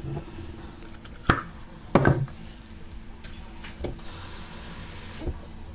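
Kitchen bottles and containers being handled on a countertop: two sharp knocks a little over a second apart, then a few lighter clicks and a brief soft hiss about four seconds in.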